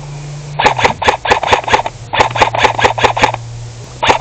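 A replica AK-pattern rifle firing three full-auto bursts of sharp shots, about eight a second, over a steady low hum.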